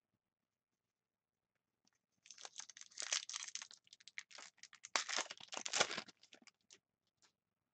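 Foil trading card pack being torn open and its wrapper crinkled in the hands. It starts about two seconds in as a run of crackling and tearing, louder in two stretches, and stops shortly before the end.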